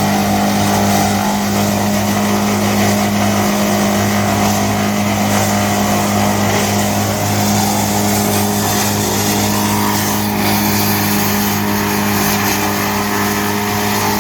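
GL&D M175DS tractor-mounted woodchipper running steadily with its tractor: a constant low engine hum under a loud, even rush of noise.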